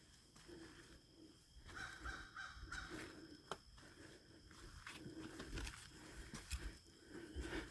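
Footsteps crunching and scuffing along a forest trail. About two seconds in come a few faint, distant crow caws.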